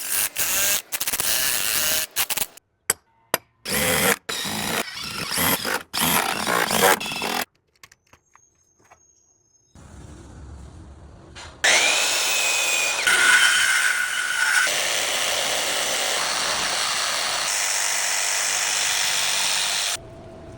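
Power tools working redwood lumber: several short bursts, broken by abrupt stops, then a longer steady run of a tool with a whine in it, lasting about eight seconds.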